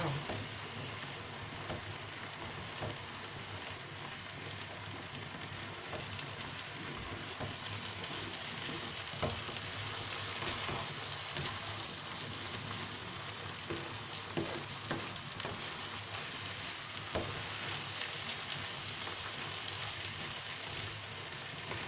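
Garden-egg and tomato stew frying in oil in a pan: a steady sizzling hiss, with scattered light clicks as it is stirred.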